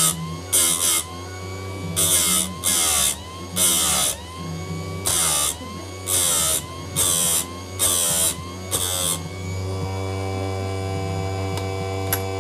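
Electric chainsaw chain grinder. Its motor runs with a steady hum while the spinning wheel is dipped onto the cutter teeth of a dull chain about nine times, in short grinding passes roughly once a second. The motor's pitch sags under each pass and recovers. The grinding stops about nine seconds in, and the motor keeps running, with a single click near the end.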